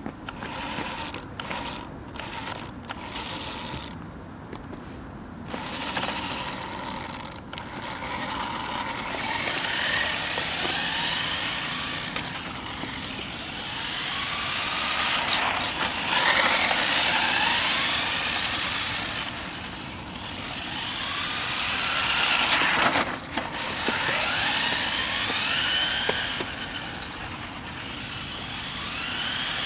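1/10-scale RC touring car running on asphalt: its electric motor and gears whine, rising in pitch again and again as it accelerates, over a rushing noise that swells and fades. The first several seconds are quieter.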